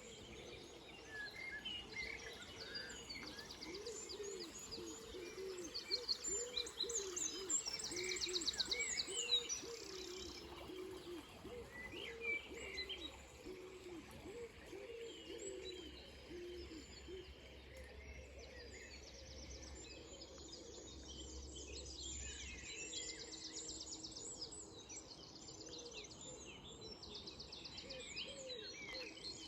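Dawn chorus of several songbirds singing at once: overlapping chirps, whistles and fast trills, busiest in the first third and again near the end.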